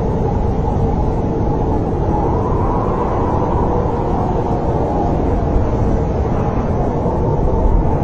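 Snowstorm wind blowing steadily as a deep rumble, with faint wavering tones on top.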